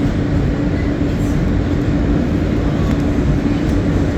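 R160 subway train running on the rails: a steady rumble of wheels and track with a constant humming tone over it.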